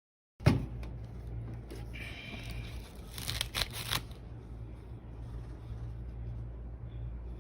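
A sudden bump, then a steady low hum with rustling and a run of crackly clicks in the middle.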